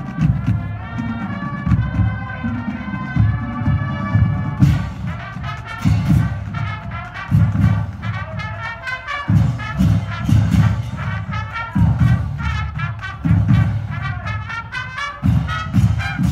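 Marching band playing while on the march, trumpets and other brass carrying the tune over a strong, pulsing low bass part.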